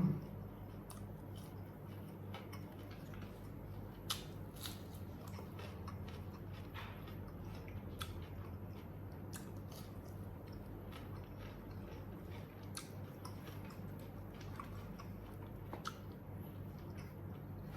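A person chewing and eating fried chicken and rice by hand, with soft mouth sounds and scattered small clicks, over a steady low hum.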